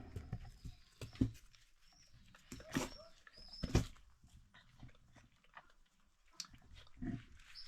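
Goat doe and newborn kid making a few short animal sounds, snuffles and brief calls, mixed with rustling, as the kid noses around for its first drink. The sounds come one at a time, about a second, three seconds and four seconds in, with another near the end.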